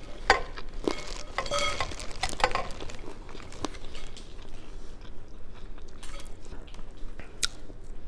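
Close-up eating sounds: chewing, with irregular sharp clicks and squelches as hands with long acrylic nails peel boiled shrimp inside a sauce-covered plastic seafood-boil bag.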